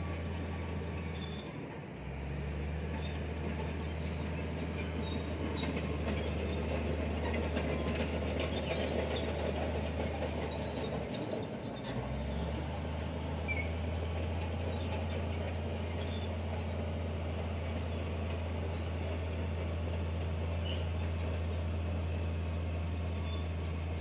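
Diesel engine of a SANY STG190C-8S motor grader running steadily under load while working gravel, with faint high metallic squeaks and clicks over a low drone. The low drone drops out briefly twice, about 2 and 12 seconds in.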